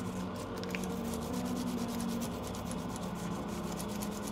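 A small brush scrubbing the solder side of a mechanical keyboard's circuit board to clean the freshly soldered switch joints. It is a steady rubbing, full of quick scratchy ticks.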